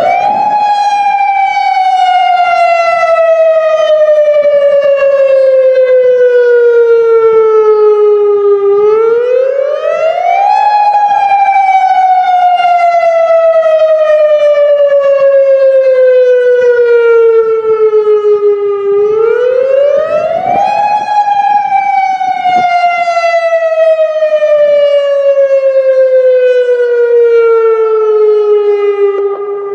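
Federal Signal Modulator 3012 outdoor warning siren sounding the attack signal. Its pitch rises quickly, then glides slowly down over about eight seconds, three times over.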